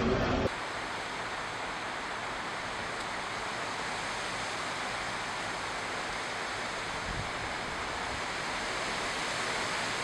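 Steady rain falling on trees, an even, continuous hiss.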